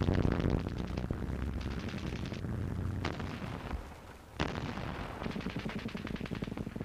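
Gunfire: rapid machine-gun fire with single sharp shots cracking through, the sharpest about four and a half seconds in, over a low rumble during the first two seconds.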